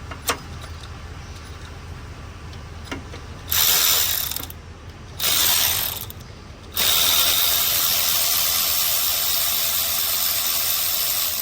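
Cordless electric ratchet spinning out 10 mm bolts: two short bursts, then one long steady run of about five seconds. The owner suspects its battery is low.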